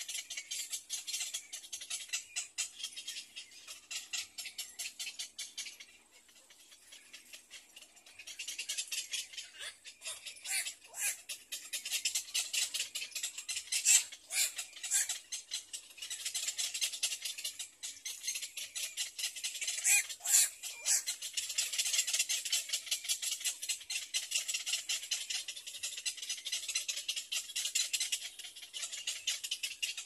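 Little egret chicks giving a fast, dry, rattling clicking chatter, the begging call of hungry nestlings. It drops away for a moment about six seconds in, and a few louder clicks stand out in the middle.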